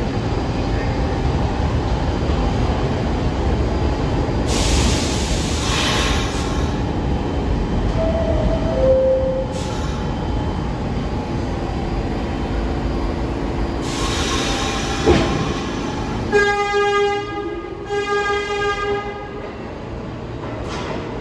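New York City subway train rumbling through the station, with two bursts of hissing. Partway through comes a two-note falling chime, and near the end two horn blasts sound one after the other.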